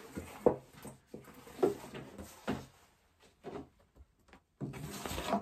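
Paper kamishibai picture cards being handled and slid against a wooden kamishibai stage: a string of short rustles and knocks, then a longer sliding rustle near the end.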